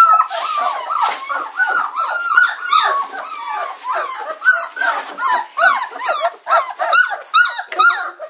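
A litter of young German shorthaired pointer puppies squealing and whining together at feeding time. Many short, high cries rise and fall and overlap without a break.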